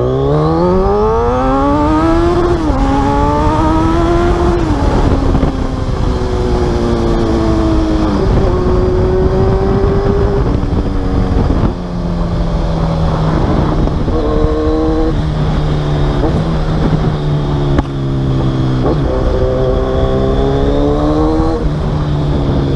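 Kawasaki Z1000 inline-four motorcycle engine running through a full aftermarket exhaust system, accelerating hard up through the gears with quick upshifts, then rising and falling in revs as the bike is ridden. The exhaust note is deep and clean.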